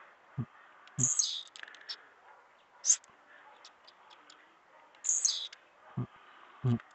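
Caged blue-black grassquit (tiziu) singing its short, buzzy 'trincado' song twice, each phrase falling from high to lower pitch, with a single short high note between them. Dull low thumps come with the phrases.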